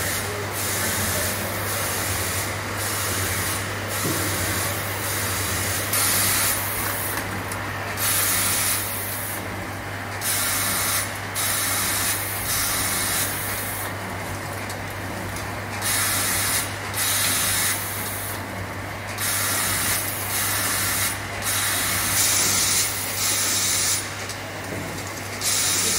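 Automatic cartoning machine running: a steady low hum under a loud hiss of compressed air from its pneumatic and suction system, cutting in and out every second or two as the machine cycles.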